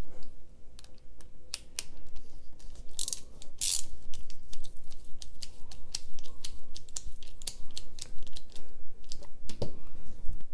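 Screwdriver driving the pivot screws of a Civivi Crit folding knife: a run of small, sharp metal clicks and taps at an uneven pace. A heavier knock comes near the end.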